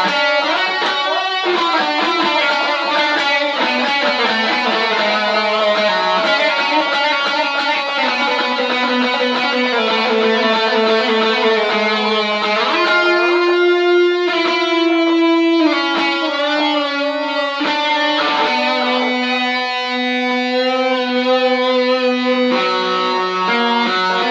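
Electric guitar played through a tape echo effect: a melody of single notes, several of them held for a second or more.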